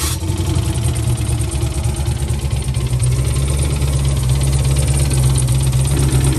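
Turbocharged Fox-body drag car's engine idling steadily just after starting, run to check a knock. The knock was first blamed on a bent rod or rod bearing, but on hearing it again the crew no longer thinks it is the rod.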